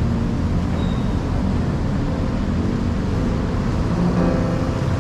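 Steady city traffic noise from cars and motorbikes on the road, a constant low rumble. A few pitched tones join near the end.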